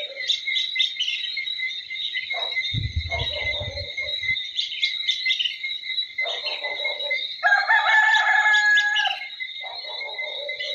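A rooster crowing once, loud and held for nearly two seconds about seven seconds in, over a continuous chorus of chirping birds. Shorter calls come around two, six and ten seconds in, and there is a brief low rumble around three seconds in.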